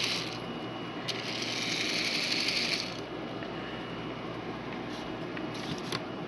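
Small battery-powered motor and plastic gears in a Barbie 12 Dancing Princesses Genevieve doll whirring as they spin her skirt. The whirr stops about a third of a second in, starts again about a second in, and stops again about three seconds in.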